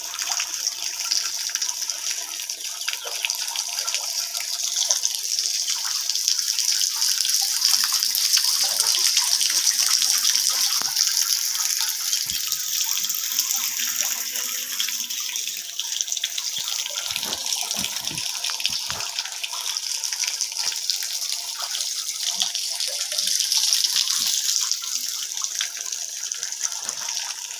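Strong jet of water gushing steadily from the open end of a 1-inch pipe, driven at full pressure by a 12 V DC water pump, splashing as it lands.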